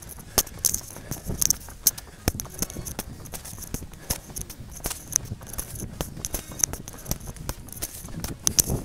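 Trail runners' footsteps pounding down a dirt path, a quick irregular run of knocks, with rattling and jingling of carried gear.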